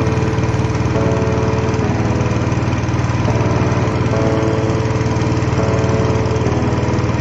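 A small engine running steadily with a fast, even low chug, and a tune of held notes changing about once a second over it.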